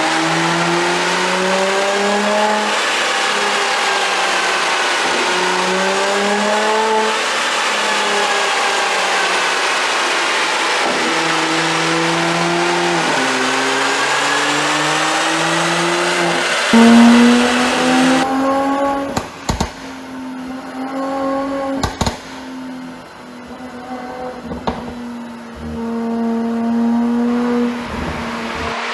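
Mercedes-AMG GLC 43's twin-turbo V6 exhaust revving up and down, its note rising and falling over and over. After about eighteen seconds the revs drop back and the exhaust fires several sharp pops and cracks on the overrun, the pop-and-bang effect of its ECU tune.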